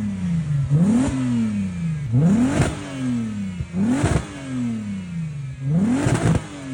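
VW Caddy with an R32 3.2 VR6 engine conversion being revved in quick throttle blips, about five times, each rev snapping up and falling back, with a crackle at the peaks. It breathes through the original diesel exhaust with a cheap stainless back box and a turn-down tip.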